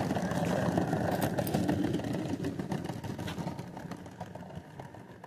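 Miniature live-steam locomotive running on a garden railway with a fast run of exhaust beats. It grows gradually quieter as it moves away.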